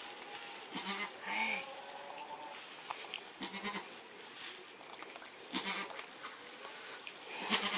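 Goat bleating briefly a few times, with soft rustling in straw between the calls.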